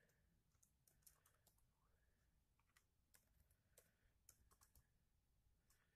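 Faint, irregular keystrokes on an IBM ThinkPad laptop keyboard: scattered key clicks in small uneven clusters.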